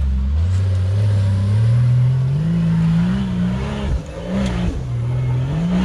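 Competition 4x4 truck's engine revving hard under load up a steep hill climb, its pitch rising in steps, dipping briefly about four seconds in, then rising again near the end.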